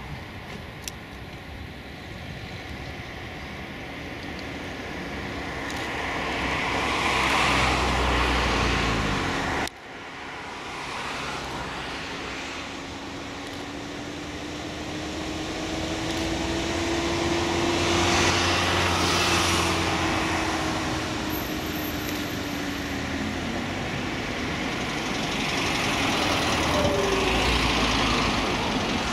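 Propeller aircraft engines running on the runway, swelling up and down three times, with an abrupt cut a little before ten seconds in. In the middle a low steady hum rises slightly in pitch and falls again.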